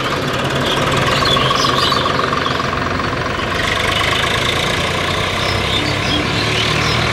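Tata Sumo SUV's diesel engine idling steadily, with a knocking clatter.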